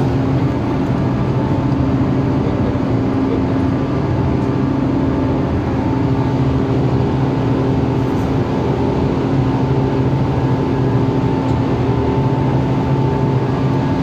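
Steady mechanical hum of running chiller plant equipment, with several steady tones that do not change.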